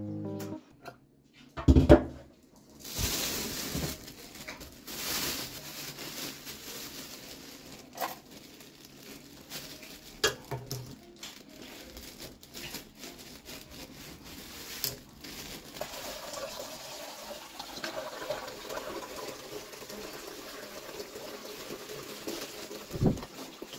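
Kitchen sink sounds: water running from the tap, with small knocks and clatter of a pot and scissors and the crinkle of a plastic bag of quail eggs. A sharp thump about two seconds in.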